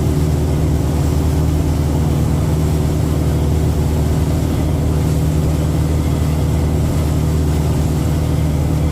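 Boat engine running steadily under way, a deep, constant drone with the rush of water and wind over it.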